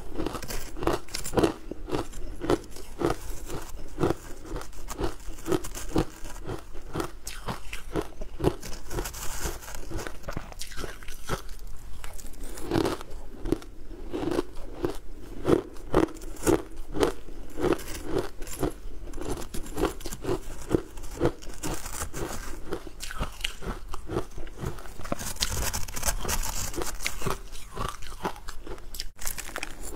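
Close-up chewing of a mouthful of crumbly frozen food: a quick, steady run of crunches.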